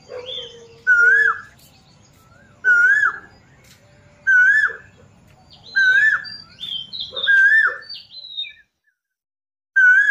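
A songbird repeating the same short whistled phrase, rising then falling, six times at about one-and-a-half-second intervals, with higher chirps in between. A faint low hum underneath stops about eight seconds in.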